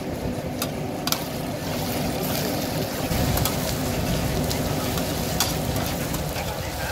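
Eggs sizzling as they fry on a giant flat pan, with metal spatulas scraping and clicking against the pan now and then as they are turned and chopped.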